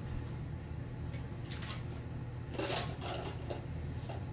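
Off-screen rummaging for plastic blaster pieces: a few short rustles, then a louder clatter around the middle, over a steady low hum.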